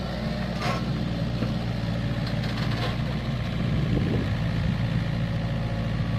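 Komatsu PC45 mini excavator's diesel engine running steadily as the machine swings and digs.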